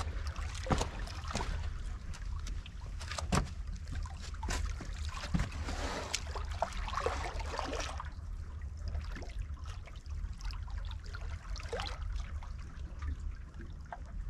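Estuary water lapping and trickling against rocks at the water's edge, with scattered splashes and knocks, busiest for the first eight seconds or so and calmer after. A steady low rumble runs underneath.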